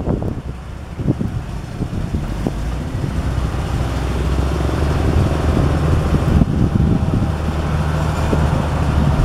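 Komatsu WA350 wheel loader's diesel engine running under load as the machine pushes dirt and drives off the pile, growing louder after about three seconds. A few short knocks come in the first seconds.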